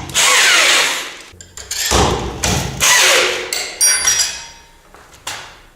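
Hammer blows on steel threaded anchor studs being driven into drilled holes in a concrete floor: about five heavy strikes roughly a second apart, one with a short metallic ring.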